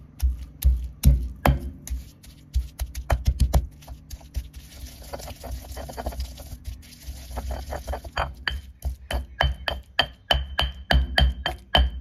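Stone pestle pounding curry paste with shrimp paste in a granite mortar: repeated dull thuds at about three strokes a second. The strokes are fewer and softer in the middle. In the last few seconds they come with bright stone-on-stone clinks that ring briefly.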